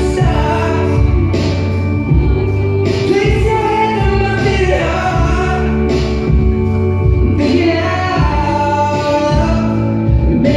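Music: a sung song, long held vocal notes over a steady accompaniment.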